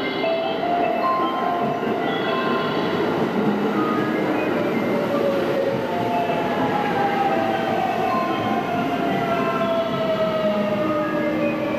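JR 681 series electric limited express running into the platform and braking, with rail and wheel noise and an electric traction whine that falls steadily in pitch from about six seconds in as the train slows. A chiming melody sounds over it in the first few seconds.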